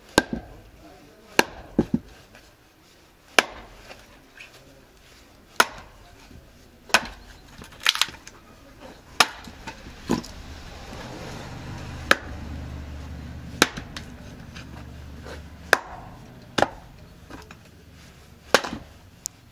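Hatchet chopping firewood: about fifteen sharp single strikes, one every one to two seconds. A low rumble runs underneath for a few seconds in the middle.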